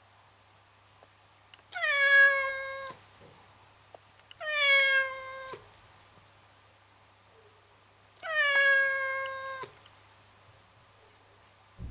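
Domestic cat meowing three times, long drawn-out meows of about a second and a half each, every one starting a little higher and settling into a held pitch.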